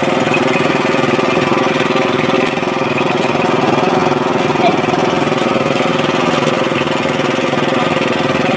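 Small fishing boat's engine idling steadily, a fast even chugging with no change in speed.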